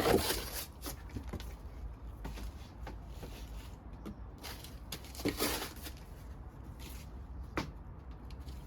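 Wood fire crackling, with three louder sharp pops: one at the start, one about five seconds in and one near the end.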